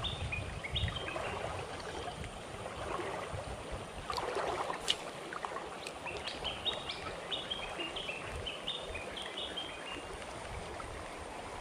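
Shallow river water running over a riffle in a steady rush, with a bird calling a series of short high notes that step up and down, briefly near the start and again in a longer run from about six to nine seconds. A brief louder noise with a sharp click comes about five seconds in.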